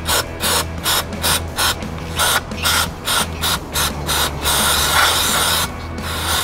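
Aerosol throttle-body cleaner sprayed in quick short bursts, about three a second, then one longer spray of about a second and a half that stops suddenly. Background music plays underneath.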